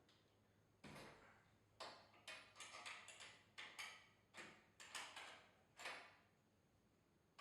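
A run of about ten sharp knocks and scrapes, each with a short ringing tail, spaced unevenly over about five seconds: tools working on a garage door's torsion spring shaft.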